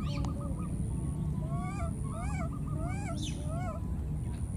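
Baby monkey calling: a few short chirps, then about four short rising-and-falling coo calls in quick succession, over a steady low rumble.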